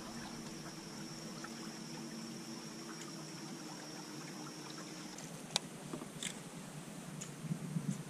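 Water trickling and lapping along a kayak hull under way, with the steady low hum and high whine of an electric trolling motor; the motor sound stops about five seconds in, and a few sharp clicks follow.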